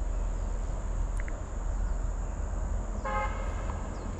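A vehicle horn gives one short toot about three seconds in, over a steady low outdoor rumble.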